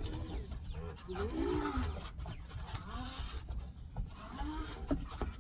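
Dogs growling in play as they tug on rope toys: short, rising-and-falling growly calls, several in quick succession, over a constant low rumble.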